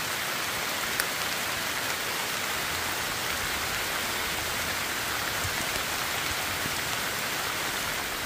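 Steady rain falling, with a single click about a second in.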